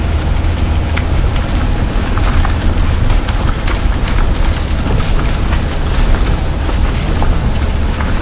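Wind buffeting a camera microphone held outside the window of a moving car, with a steady low rumble of the car running and its tyres on a wet, rough road, and scattered small clicks.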